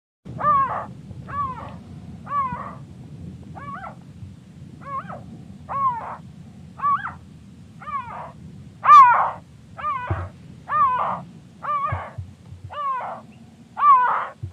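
Slowed-down, stretched bird calls used as a speculative troodontid dinosaur voice: a series of about fourteen short, curving calls, roughly one a second with a short pause near the start, over a steady low background noise.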